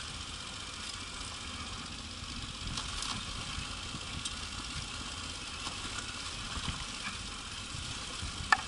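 Yamaha Ténéré 700's parallel-twin engine running at low speed on a gravel track, with tyre and gravel noise, scattered light clicks and rattles, and one sharp knock near the end.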